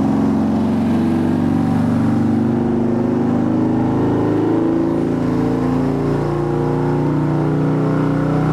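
Harley-Davidson Milwaukee-Eight 117 V-twin running loud and steady on a chassis dyno through a Bassani 2-into-1 Super Bike exhaust, its pitch drifting only slightly, with a deep, full, low tone.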